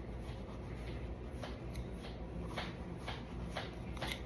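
Knife cutting through melon rind and flesh in a series of short, soft, scratchy strokes.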